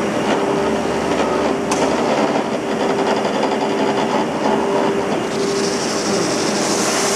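Drum sanding machine running with a steady hum and a rattling mechanical clatter. A single click comes about two seconds in, and a brighter hiss joins about five seconds in.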